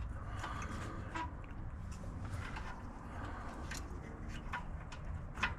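Faint scattered clicks and light scrapes of metal parts being handled as a snowblower carburetor is fitted back onto the engine, over a steady low hum.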